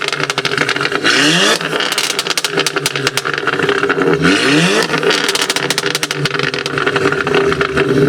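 Volkswagen Golf's turbocharged four-cylinder engine revved twice, each rev rising quickly and followed by a rapid string of exhaust crackles and pops, then settling to a steadier engine note near the end.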